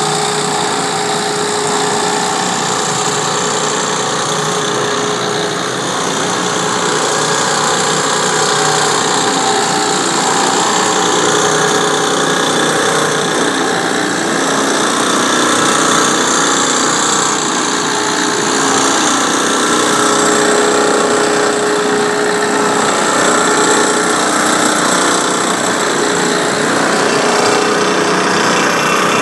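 Spray rig's engine-driven pump running steadily with a constant hum, under the hiss of water jetting from a hand spray gun on a hose.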